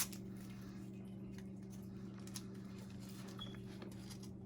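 Faint light clicks and taps of small plastic packaging being handled and opened, over a steady low electrical hum.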